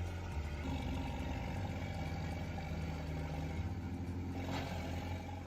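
A farm machine's engine running steadily with a low, even hum.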